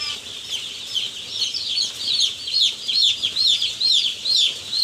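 A brood of day-old broiler chicks peeping together in a loud clamour: a dense, continuous run of short, high, falling chirps, several a second. This clamour is normal for chicks newly put under the brooder lights in a strange place, and it is expected to die down within a few hours.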